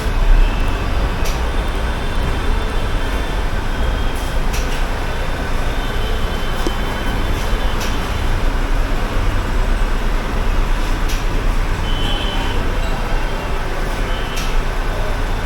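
Steady low rumble and hiss of workshop and traffic noise, with a few faint clicks and brief faint high tones.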